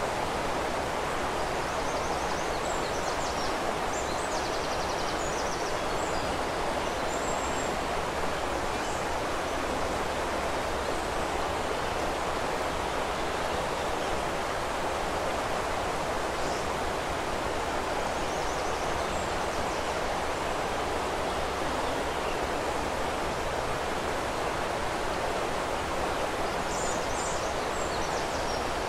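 Steady rushing of river water, with small birds chirping faintly now and then, in short clusters near the start, around the middle and near the end.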